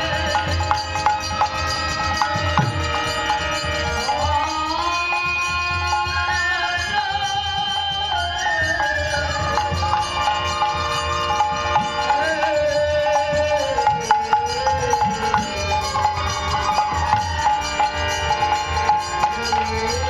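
Devotional kirtan music: a gliding melody line over a held drone, with hand-drum strokes throughout.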